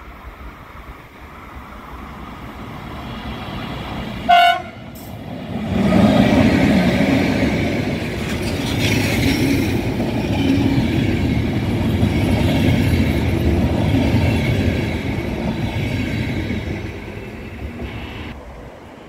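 An electric locomotive gives one short horn blast about four seconds in. Then a locomotive-hauled passenger train passes close by: the rumble and wheel-on-rail noise of the coaches rise, hold, and fade near the end.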